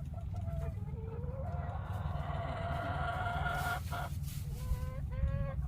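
Chickens calling: one long, drawn-out call that rises slightly in pitch, then a quick run of short calls near the end. A steady low rumble runs underneath.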